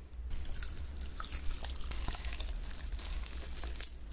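Close-miked ASMR eating of sauce-glazed roast chicken: a dense run of crisp crunches and wet, sticky chewing clicks.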